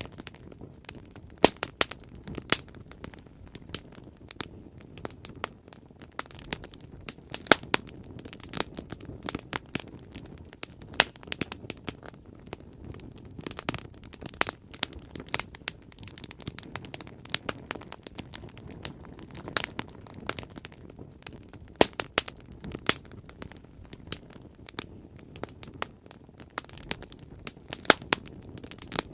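Bonfire crackling and popping: irregular sharp snaps of burning wood, a few of them much louder, over a steady low rush of flame.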